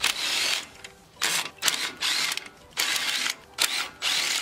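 Power drill spinning loosened lug nuts off a truck wheel in about six short trigger bursts, its motor whine rising and falling with each one.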